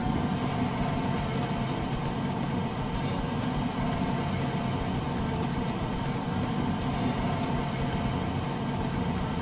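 A steady low mechanical hum, like an engine idling: a cartoon machine sound effect.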